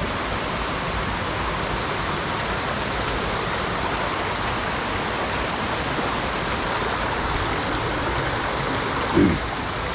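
Steady rushing of a mountain stream's current. A brief louder sound near the end.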